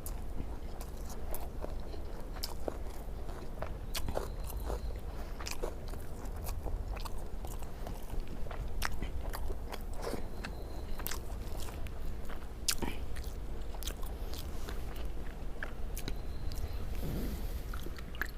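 Close-up chewing and mouth sounds of a person eating rice with fish and egg curry: irregular wet clicks and smacks, over a steady low hum.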